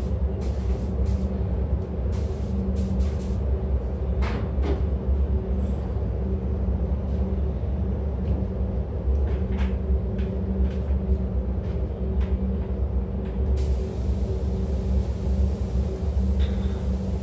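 Steady low rumble with a constant hum from a spray booth's ventilation fans, with scattered short clicks and knocks.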